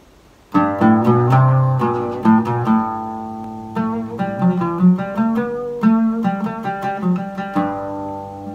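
Solo oud being plucked: a melodic instrumental introduction of quick single notes starting about half a second in, ending on a note that rings on and fades.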